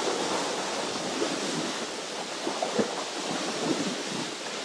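Steady wind on the microphone with small lake waves lapping, and a few light splashes of water.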